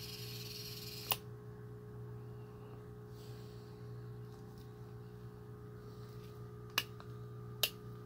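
Electric searchlight motor whirring under joystick control, cutting off with a click about a second in. A steady electrical hum from the powered light rig runs underneath, and two sharp clicks come near the end.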